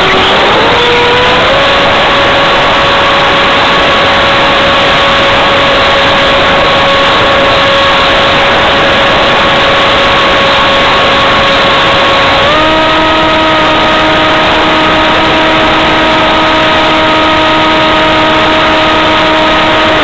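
RC flying wing's motor and propeller, heard from the onboard camera as a steady whine over loud rushing air. The whine climbs in pitch in the first second or two as the motor speeds up, holds, then steps up again a little past halfway.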